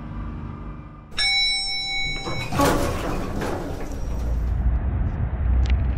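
Intro music stops about a second in and is cut off by a bright chime that rings for over a second. Then comes a whoosh of sliding elevator doors, and after it a low steady rumble.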